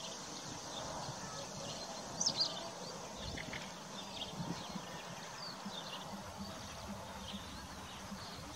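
A flock of feral pigeons feeding on pavement: light taps and scuffles of beaks and feet, with short high bird chirps here and there over a steady outdoor hiss.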